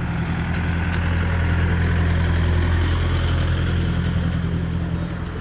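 An engine running steadily with a low hum, growing a little louder through the middle and easing slightly near the end.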